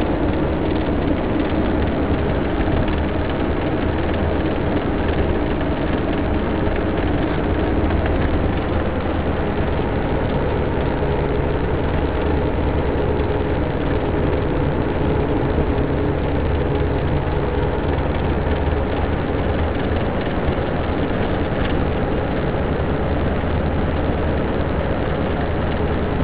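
Car driving at steady speed, heard from inside the cabin: a constant low engine hum under an even rush of road and wind noise.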